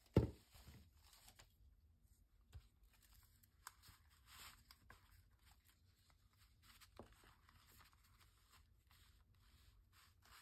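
Gelli-printed paper pieces being handled, folded and pressed flat by hand: soft rustling and crinkling with small clicks. A single knock just after the start, the loudest sound, as the heat gun is set down.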